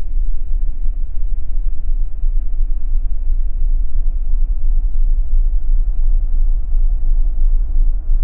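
A loud, steady low rumble.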